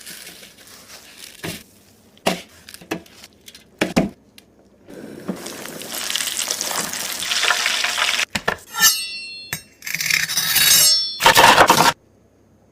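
Kitchen sounds of frying: metal utensils clinking and knocking, and stretches of hot oil sizzling, with a short ringing clink of metal in the middle.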